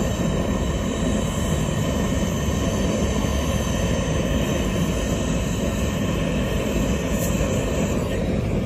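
Gas torch burning with a steady rushing noise as it melts lead onto a lead-acid battery's terminal post.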